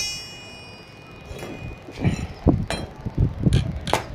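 A metal rod strikes metal with a ringing clink that dies away. From about two seconds in comes a run of irregular sputtering crackles and thumps as the electrode of a homemade Pepsi-electrolyte welder touches the metal and arcs.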